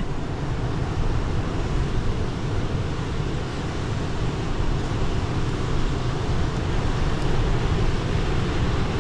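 Strong gusting wind on the microphone mixed with rough surf: a steady, unbroken roar, heaviest in the low end.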